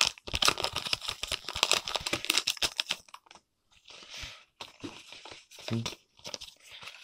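Plastic packaging of Pokémon booster packs crinkling and tearing as the packs are unwrapped and opened by hand. The crinkling is dense for about the first three seconds, then thins to a few quieter rustles.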